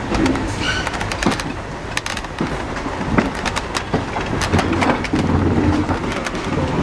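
Railway brake van rolling along the track: a steady rumble with irregular clicks and clanks from the wheels crossing rail joints and points.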